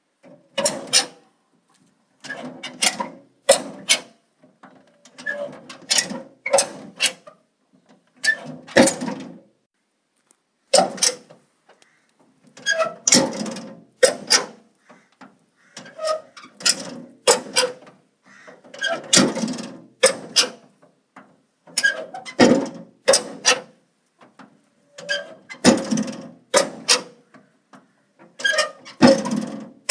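Metal door being worked over and over, about once every two to three seconds: each cycle is a short burst of squeaky hinge noise and sharp metallic clicks and knocks from the latch and frame, with brief pauses between.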